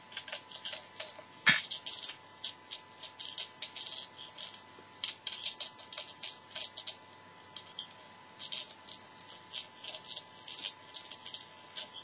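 Irregular crackling and popping from a homemade spring-terminal radio and amplifier circuit as its loose connections are prodded, with one sharp, much louder crack about a second and a half in. A faint steady high tone runs underneath.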